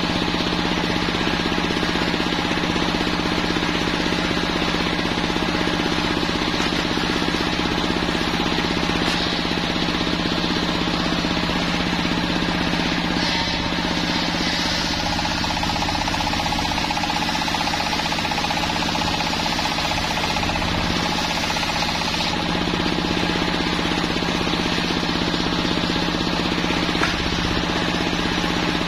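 Homemade belt-driven circular sawmill running steadily as its blade rips lengthwise through a Jenitri log: a constant motor drone with the continuous rasp of the blade cutting the wood.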